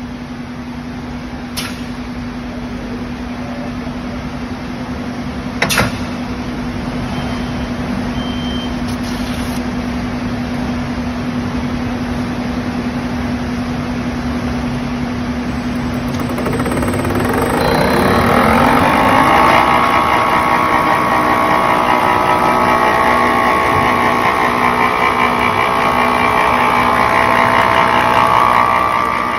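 DBFQ rotary label die cutter slitter rewinder: a steady hum with two sharp clicks in the first six seconds, then about seventeen seconds in its drive rises in pitch as the machine speeds up, and it runs on at speed with a steady whine.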